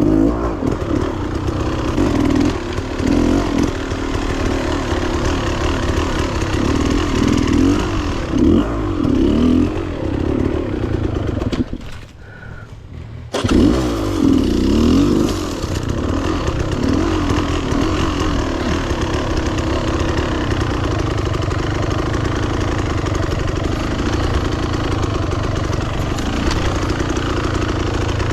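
Beta Xtrainer 300 two-stroke dirt bike engine revving up and down in repeated bursts under the rider's throttle. About twelve seconds in it drops away sharply for a second or so, then comes back suddenly, and it runs more steadily after that.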